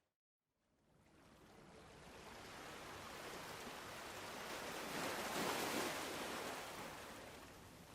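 Ocean surf: after a brief silent gap at the start, the hiss and wash of a wave builds, peaks a little past halfway, then eases off.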